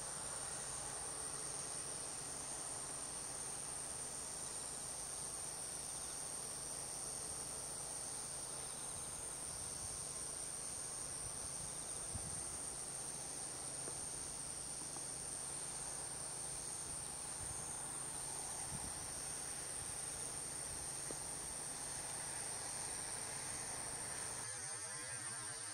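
Steady, high-pitched chorus of insects, likely crickets, holding one unbroken tone, over faint low background rumble that drops away near the end.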